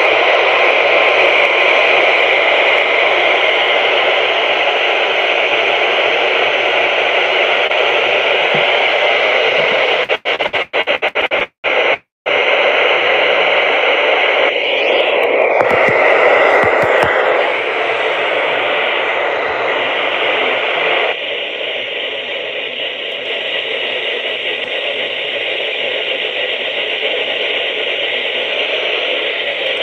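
Steady FM radio static hiss from a software-defined radio receiver tuned to a NOAA Weather Radio frequency with no clear broadcast coming through. It cuts out in several brief gaps about ten to twelve seconds in, changes texture around fifteen seconds, and drops slightly in level about twenty-one seconds in.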